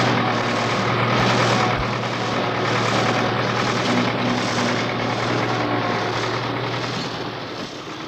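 Dense mechanical din of city machinery: a steady low hum under a thick noise that pulses a little under twice a second. The hum drops out near the end and the din eases off.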